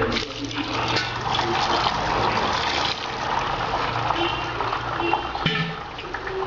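Tap water running into a steel bowl of boiled noodles in a sink, rinsing them; the flow drops away with a knock about five and a half seconds in.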